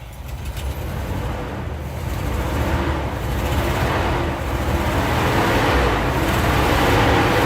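1983 Chevrolet C10's 305 small-block V8 running on a freshly rebuilt four-barrel carburetor, being revved. It is a steady low rumble that grows gradually louder.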